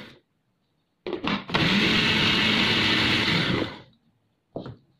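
Electric food processor chopping onion, ginger and green chillies: two quick pulses about a second in, then a run of about two seconds that winds down, with one more short sound near the end.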